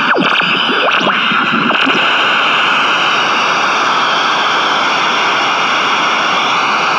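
GE P726 AM transistor radio's speaker giving a loud, steady hiss of static between stations. In the first two seconds a few gliding whistles come through, as when the dial is swept across the band.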